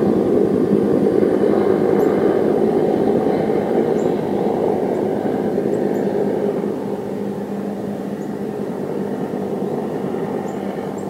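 Steady low rumble of the Falcon 9 rocket fire burning on the launch pad after the explosion, slowly getting quieter.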